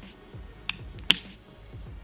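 Two sharp clicks a little under half a second apart: a CR2032 coin-cell battery being pressed into the key fob's battery holder. Quiet background music plays underneath.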